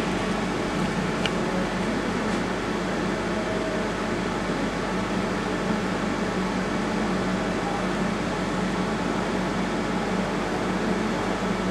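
Steady hum of a cooling fan running, with a low drone underneath.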